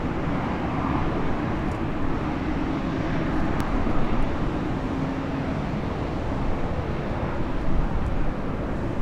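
Airbus A220-300's Pratt & Whitney PW1500G geared turbofan engines running at low taxi thrust: a steady drone with a held low hum.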